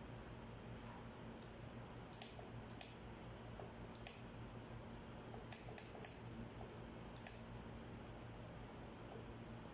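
About seven sharp, small clicks and taps, spaced irregularly from about two seconds in to past seven seconds, over a steady low hum.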